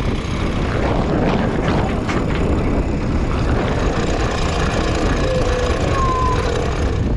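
Sailing yacht's powered cockpit winch hauling the halyard to hoist the sails, a steady motor whir with a couple of short squeaks near the end.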